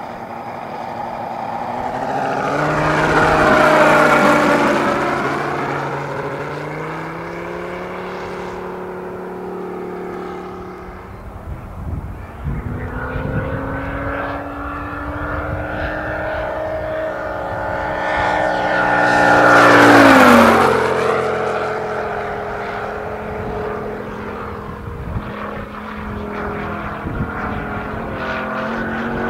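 Large-scale RC Hawker Sea Fury model's 250 cc Moki radial engine, geared down through a planetary gearbox to a huge five-blade propeller, running hard in flight. It flies past twice, loudest about four seconds in and again about twenty seconds in, its pitch dropping each time as it goes by.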